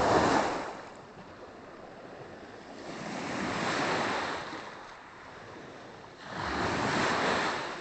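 Small waves of a calm sea washing onto a stony beach: three swells of surf about three seconds apart, the first, at the very start, the loudest.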